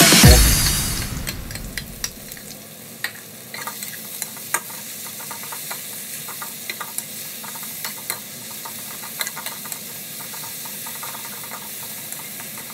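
Julienned green bell pepper frying in hot oil in a stainless steel wok, with a steady sizzle. A metal spatula stirring the strips makes frequent light clicks and scrapes against the pan.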